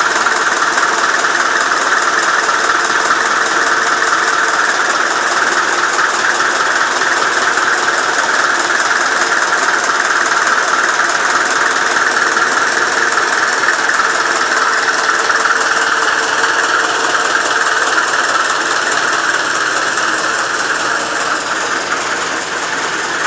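Four-cylinder diesel engine running steadily with the even clatter of diesel combustion, a little quieter near the end.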